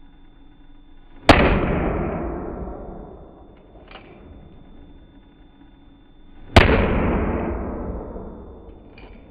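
Two shots from a Colt Single Action Army revolver, about five seconds apart, each ringing out and fading over two to three seconds. A faint click follows each shot a few seconds later.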